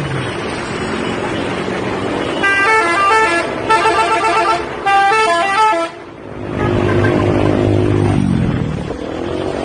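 Indonesian bus 'telolet' musical horn playing a quick multi-note tune in three runs over about three seconds, over bus engine and traffic noise. A bus engine then runs loudly for the last few seconds.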